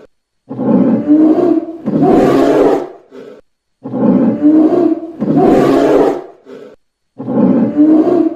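Bear roaring: loud, deep roars in long bouts about every three and a half seconds, like one recording played over and over.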